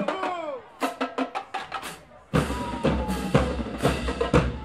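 Marching band drumline playing: sharp drum strikes, a brief break just before halfway, then loud hits with heavy bass drum.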